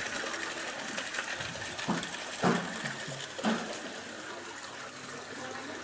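Water and washed soybeans pouring from a soybean washing machine's outlet chute into a plastic basin, a steady rushing. Three short knocks come about two, two and a half and three and a half seconds in; the middle one is the loudest.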